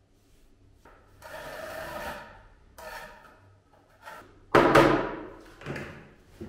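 A masonry trowel scraping and working wet mortar. A loud knock about four and a half seconds in is the loudest sound, with a few smaller knocks around it.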